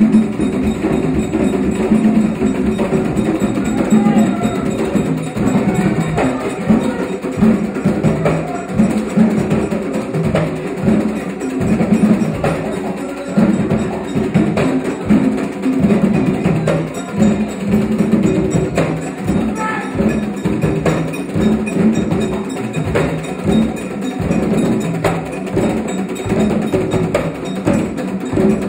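Haitian Vodou ceremonial drumming: several hand drums played together in a steady, driving rhythm, with a struck-metal, bell-like part ringing over them.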